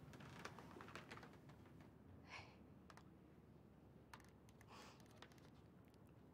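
Near silence: faint room tone with a few soft clicks and two brief faint breaths.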